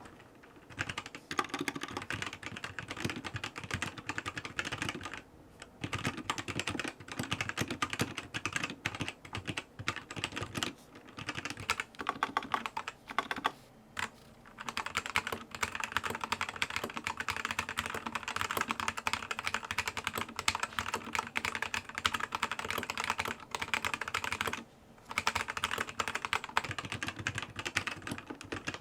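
Typing on a ZI YOU LANG K68 mechanical keyboard with red linear switches: fast, continuous runs of keystrokes, broken by short pauses a few times.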